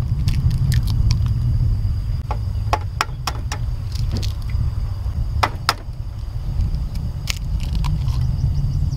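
Eggs frying in a pan on a portable gas stove, crackling and spitting in sharp irregular pops as more eggs are cracked into the pan. A steady low rumble runs underneath and drops away near the end.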